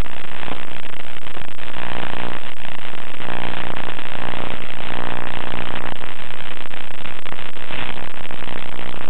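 Loud static hiss of an FPV plane's onboard audio over the video link, with the hum of the RC plane's motor and propeller coming and going in the middle of the stretch.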